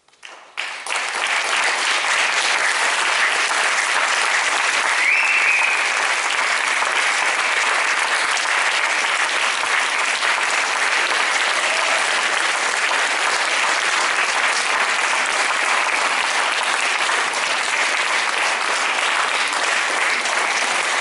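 An audience applauding. It breaks out about half a second in, reaches full strength within a second or so, then holds steady. A short rising tone sounds briefly about five seconds in.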